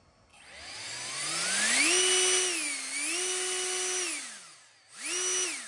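The electric-motor-driven, 3D-printed downforce fan of an RC fan car spinning up with a rising whine, holding at high speed with a brief dip, then winding down, followed by a short second blip up and down near the end. It is ear-plug-wearing loud.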